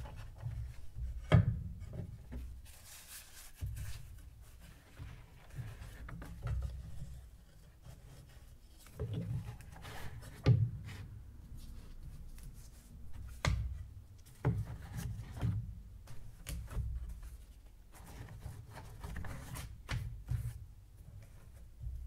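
Close-up handling sounds of stiff paper being moved about: rubbing and scraping with irregular sharp knocks, the sharpest about a second in and again near the middle.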